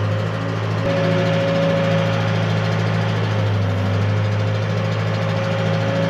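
An older backhoe's diesel engine running steadily as the machine is put in gear and moves off, heard from inside the cab: a constant low drone with a thin whine over it.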